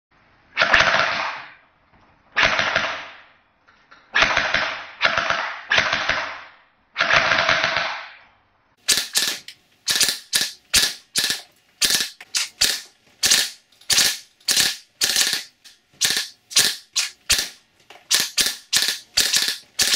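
3D-printed FGC-6FA open-bolt gas blowback airsoft gun firing full auto. First come about six bursts of roughly a second each, then, from about halfway in, a quick series of many short, sharper bursts.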